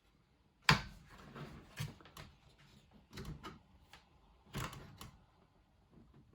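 A handful of sharp plastic clicks and knocks, the loudest about a second in, from working the DDR2 memory modules and their slot latches inside an HP dc5800 desktop during a RAM swap.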